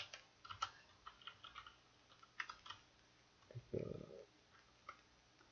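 Faint typing on a computer keyboard: scattered keystrokes a few at a time with short pauses between, and one brief low muffled sound a little past the middle.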